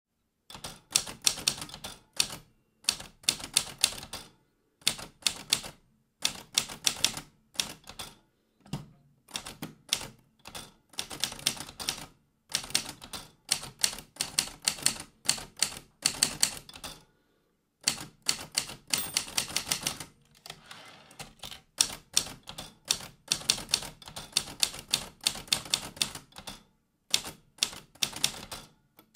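Typewriter keys clattering in quick runs of keystrokes, each run a second or two long, with short pauses between runs.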